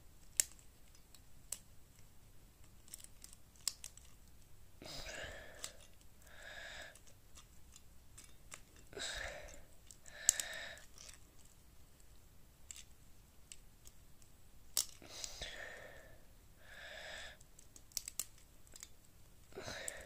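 Plastic puzzle cube being turned by hand, its layers giving scattered faint clicks, with a person's breathing heard as paired breaths about every four to five seconds.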